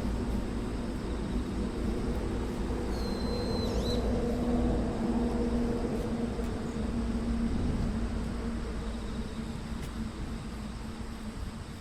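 A steady engine hum that fades toward the end, with a short high whistle about three seconds in.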